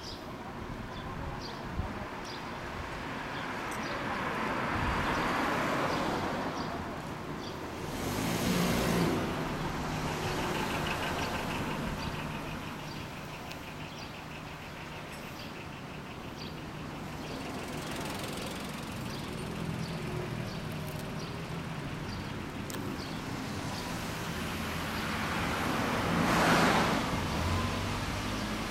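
Street traffic: engines idling and running at low speed, with vehicles passing by in several swells, the loudest near the end.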